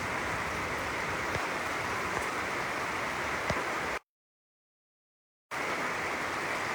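Heavy rain falling steadily, an even hiss with a few sharp taps of drops. About four seconds in the sound drops out completely for about a second and a half, then the rain resumes.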